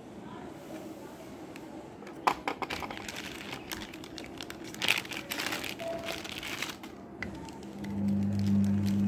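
Clear plastic packaging bag crinkling and crackling as it is handled and pulled off a pair of sunglasses, for several seconds. Near the end a steady low hum starts and becomes the loudest sound.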